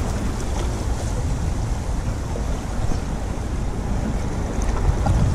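Steady low rumble of wind on the microphone, with waves washing against the shoreline rocks.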